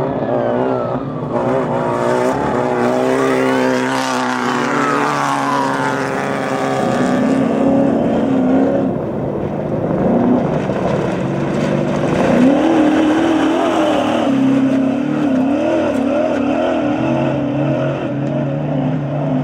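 Desert race truck's engine running hard, its pitch climbing and dropping with the throttle throughout. In the first few seconds there are falling pitch sweeps, like a vehicle passing close by.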